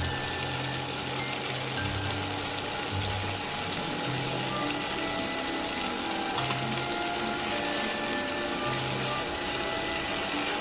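Food frying in hot oil with a steady sizzle, under background music with a slow bass line.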